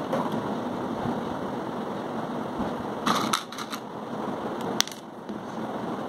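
Light clicks and taps from small plastic string-light bulbs being handled and fitted together by hand: a quick cluster of clicks about three seconds in and one sharp click near five seconds, over a steady background hum.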